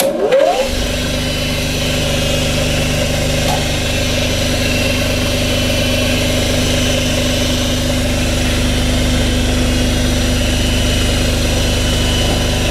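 An old cylinder-head skimming machine is switched on. Its motor spins up with a rising whine over about half a second, then runs with a steady hum, turning free and not yet cutting the head.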